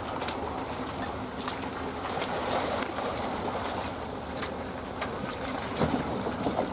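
Small boat moving through water, with a steady rush of water, a faint low hum and scattered small ticks.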